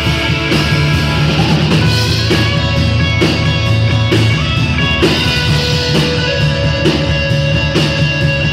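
Rock band playing live: electric guitars over a drum kit keeping a steady beat of about two hits a second.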